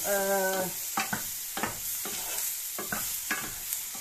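Sliced mushrooms sizzling as they fry in a nonstick pan, stirred with a wooden spoon that scrapes and knocks against the pan several times. A short steady tone sounds at the very start.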